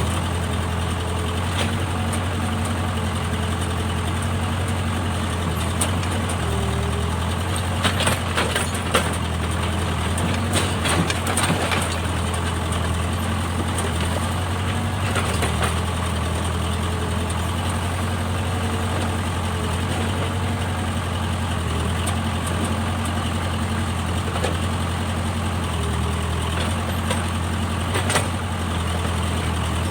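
Backhoe loader's diesel engine running steadily at a low, even speed, with a cluster of short clanks about a third of the way in and another near the end.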